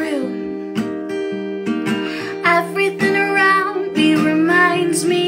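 A woman singing to her own acoustic guitar, the guitar strumming chords under the vocal line.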